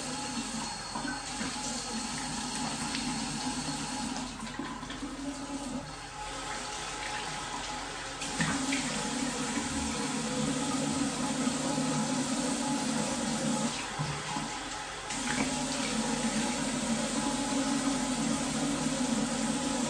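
Bathroom tap running into a sink while a face is washed with water. The flow gets louder about eight seconds in, drops briefly, then comes back up.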